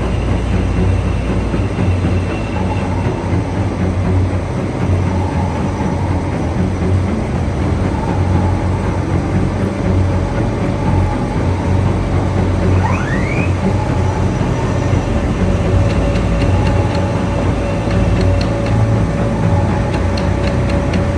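Large CNC milling machine cutting metal: a steady heavy rumble with a faint whine, a brief rising squeal about halfway through, and light rapid clicks near the end.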